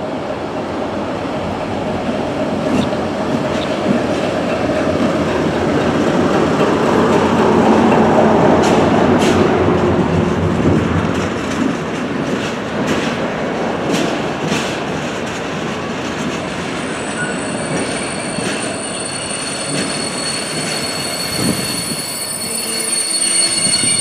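Class 60 diesel locomotive passing with a train of tank wagons. The engine swells to its loudest about a third of the way in, then the wagons roll by with sharp clicks of wheels over rail joints. A thin, high squeal from the wheels sets in about two-thirds of the way through.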